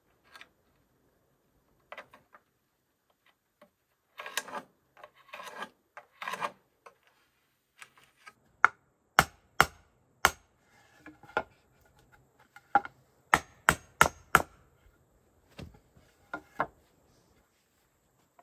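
Claw hammer striking wooden boards, about a dozen sharp blows nailing them together, spaced out at first and then four in quick succession. Before the blows, boards are shifted and rubbed against each other.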